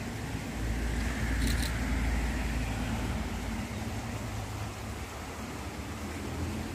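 A car passing on the road, loudest about one to two seconds in and then fading as it drives away, over a low steady rumble.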